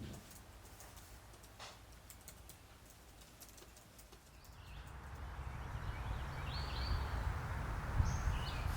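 Quiet outdoor ambience: a few faint clicks at first, then a steady rush of noise swells up about halfway through, with a few short high chirps near the end.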